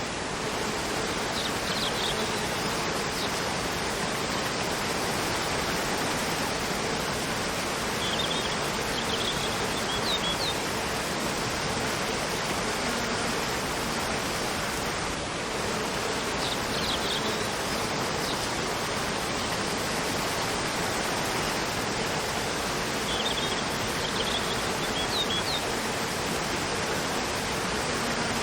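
Waterfall cascading in a steady, even rush of water. Forest birds chirp in short high phrases over it about four times.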